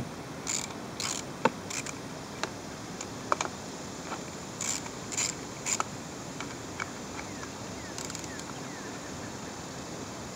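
Ratchet wrench clicking in short bursts while undoing the 10 mm bolts that hold a cooling fan to its fan clutch, with a few single sharp metal clicks in between.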